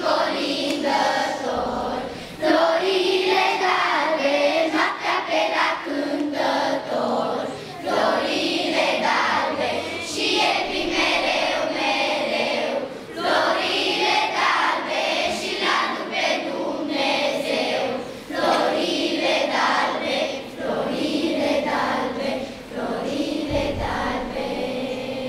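A large children's choir singing together, in phrases a few seconds long with short breaks between them.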